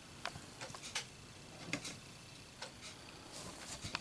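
A handful of faint, scattered light clicks and taps from small objects being handled, such as a lighter and its cardboard box.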